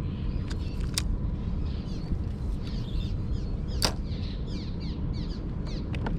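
Small birds chirping in quick repeated short notes, busiest in the second half, over a steady low wind noise, with three sharp clicks: about a second in, near the middle, and near the end.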